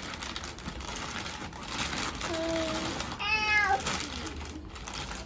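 Clear plastic wrapping crinkling as hands grip and pull at it. Two short high-pitched cries sound over it about two and three seconds in, the second one louder.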